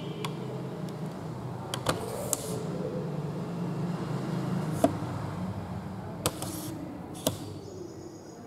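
A steady low motor-like hum with a few sharp clicks and knocks over it, the loudest about five seconds in.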